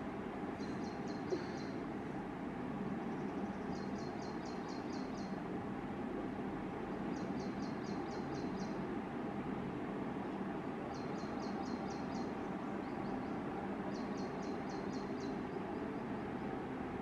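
A bird gives five short bursts of rapid, high, evenly spaced notes, each about a second long and a few seconds apart, over a steady background hum of environmental noise.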